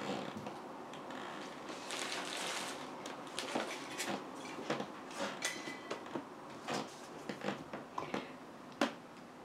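Scattered light clicks, knocks and rustling of small objects being handled, with a short hiss about two seconds in.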